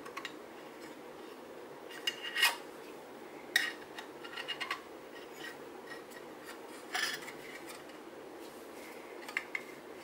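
Flat-blade screwdriver prying the metal main plate out of a Honda CT70 speedometer housing: scattered metallic clicks and short scrapes, the loudest about two and a half seconds in and again about seven seconds in.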